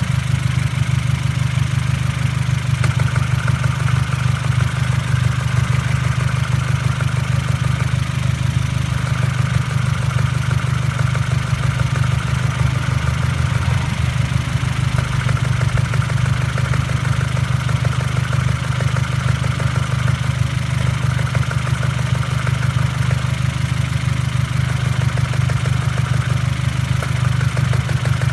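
Ford Fiesta Mk6 engine idling steadily, with a knocking click from the gearbox area. The owner cannot place the cause: the noise was there before and after a new clutch and release bearing.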